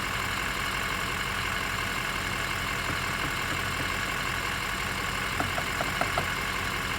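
A vehicle engine idling steadily, with a run of about five light clicks between five and six seconds in.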